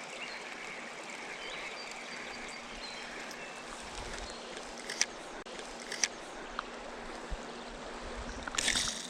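River water flowing with a steady rush. Two sharp clicks come about five and six seconds in, and a short burst of hiss comes near the end.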